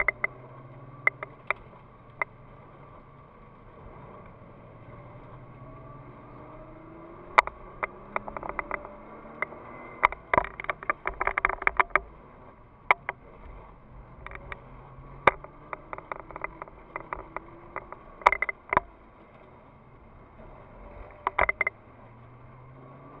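Nissan GT-R R35's twin-turbo V6 heard from inside the cabin, pulling through the gears on a wet track, its pitch rising again and again as it accelerates. Sharp clicks and knocks come in over it, a cluster about halfway through and single ones now and then.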